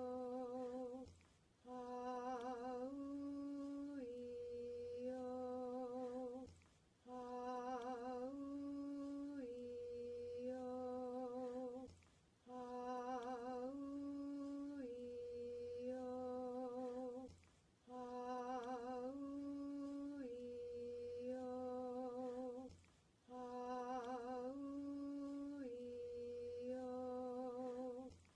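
A single voice chanting the vowel sequence 'Ah-oo-ee-oh' as a slow meditation chant. Each vowel is held for about a second on a low, close-set pitch with a slight waver, and the phrase repeats about every five and a half seconds with a short breath pause between, five times here.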